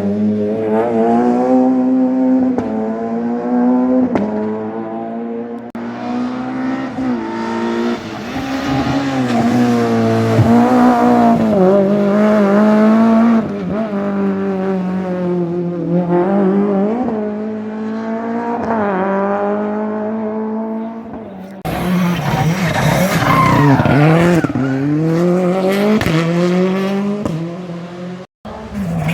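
Rally car engines revving hard through the gears on a closed stage, pitch climbing and dropping again and again, with some tyre noise. About 22 seconds in the sound cuts abruptly to another stretch of engine noise, rougher and noisier, then drops out for a moment near the end.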